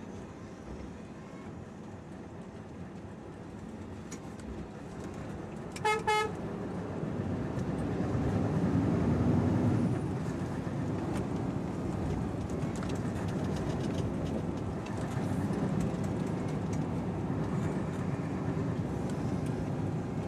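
Truck engine running in the cab as the lorry drives slowly on a wet lane, with a short horn toot about six seconds in. The engine grows louder from about seven seconds in.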